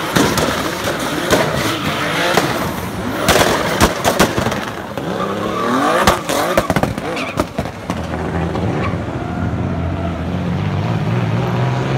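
A drift car's BMW S50 straight-six revs hard under a rapid string of exhaust pops and crackles, with tyres squealing. Around the middle the engine pitch sweeps up and down, and from about two-thirds of the way through it settles into a steadier, lower note.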